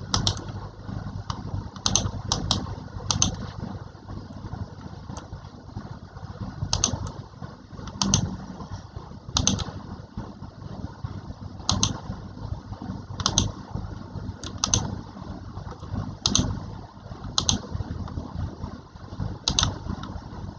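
Computer keys clicked one at a time at irregular intervals, roughly one to two seconds apart, over a steady low hum.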